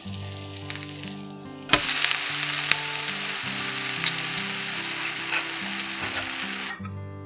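A dosa sizzling hard on a very hot pan as a silicone brush is worked over it. The sizzle starts suddenly about two seconds in and cuts off shortly before the end, over soft background music.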